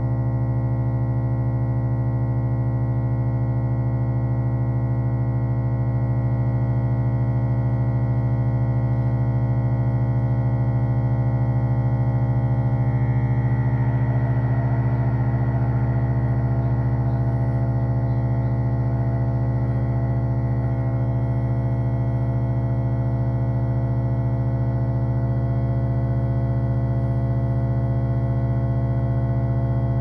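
Moen garbage disposal motor running with a loud, steady hum, struggling against soapy suds in the grinding chamber. A rougher, noisier churning comes in about halfway through and fades again.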